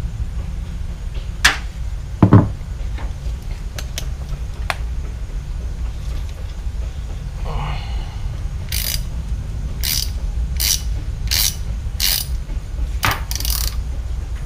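Hand ratchet clicking on its back-strokes while a fastener on a lawn mower carburetor is worked loose, in a run of about seven short bursts in the second half. Before that come two sharp clacks, the louder about two seconds in.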